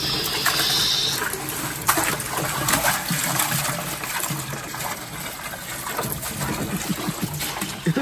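Bagged ice cubes poured into a large plastic bin of water, splashing and clattering into it, over a steady sound of running water. A few sharp clatters come about two and three seconds in.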